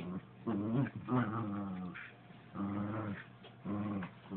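A dog play-growling as it bites and tugs at a slipper: a string of about five drawn-out growls with short breaks between them.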